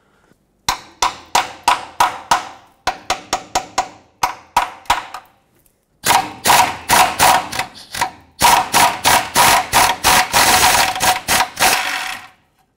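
Hammer tapping a 15 mm socket onto a rusted exhaust-flange nut to seat it without rounding the nut off: runs of sharp ringing metal strikes. They come about three a second at first, then faster and closer together from about six seconds in.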